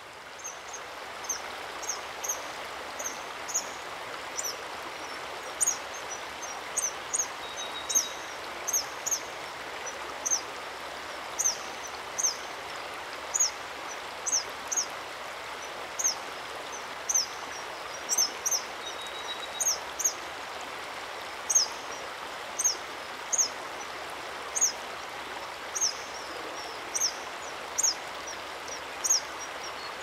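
River rapids rushing steadily, with a bird giving short, high chirps over and over, roughly one or two a second.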